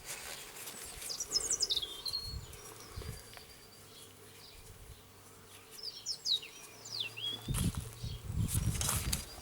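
Birds chirping in the background: two short runs of quick descending twitters, over a faint steady hum. Near the end come a few dull knocks.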